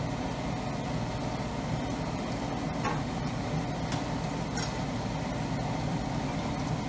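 Battered chicken pieces deep-frying in hot oil in a wok, a steady sizzle as they go back in for a second frying to crisp them, with a few light clicks.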